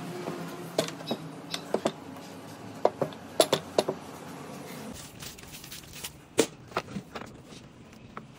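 Hand mixing wet flour into porotta dough in a large metal bowl: irregular sharp clicks and knocks, some ringing briefly, as the hand and dough strike the bowl.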